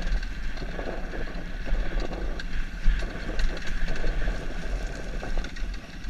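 KTM four-stroke single-cylinder enduro motorcycle running along a rough dirt track, heard from a camera on the bike, with heavy wind buffeting on the microphone. Scattered knocks from the bike over the rough ground come through, one sharper about three seconds in.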